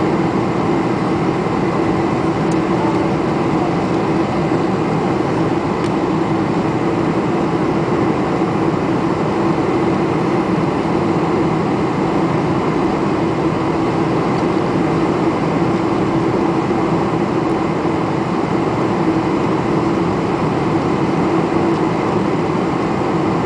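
Steady cabin noise of a Boeing 747-400 in flight or on the ground, heard from inside the passenger cabin: an even rush of engines and air with a constant low hum under it.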